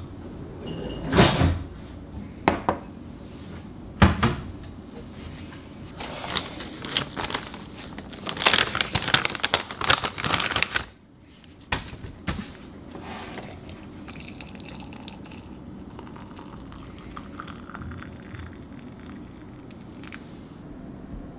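Kitchen handling sounds while making tea. First come a few sharp knocks of a ceramic mug and other things set down on a stone counter. Then a plastic tea packet crinkles and tears for several seconds and stops abruptly, followed by a couple of lighter knocks.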